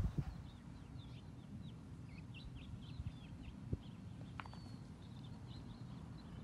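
Small birds chirping in quick, short calls over a steady low rumble. The calls are thickest in the first three and a half seconds and scattered after that.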